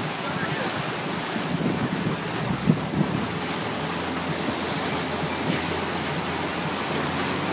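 Rushing water from a towing boat's wake and wind on the microphone, steady throughout, with the boat's engine running low underneath.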